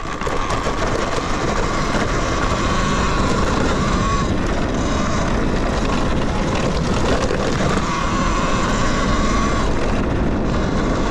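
Talaria Sting electric dirt bike pulling away and riding up a dirt trail: a steady electric motor whine over a loud rush of wind and tyre noise, building in the first second and then holding.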